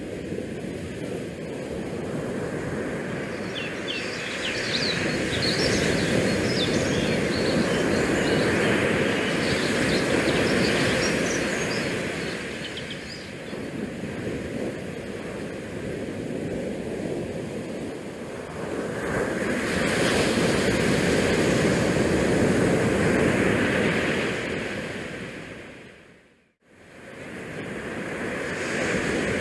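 Steady outdoor rushing noise of wind and open water that swells and eases, with a run of short high chirps between about four and thirteen seconds in. It drops out briefly to near silence a few seconds before the end, then comes back.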